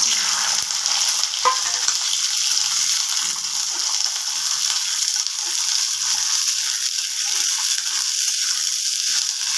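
Peeled peas hitting hot oil in a kadhai and frying, a sizzle that starts suddenly and then holds steady, with one knock about a second and a half in.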